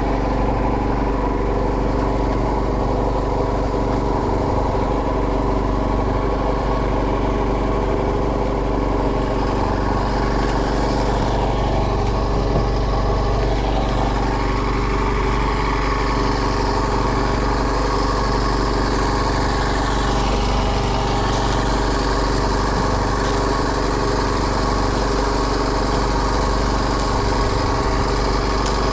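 A small fishing boat's engine running steadily at an even speed.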